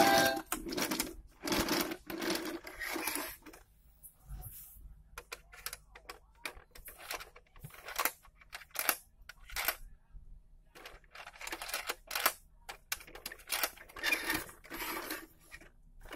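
Irregular clicks and knocks of hard plastic as a battery-powered pop-up whack-a-mole music toy is handled, its buttons and animal heads pressed.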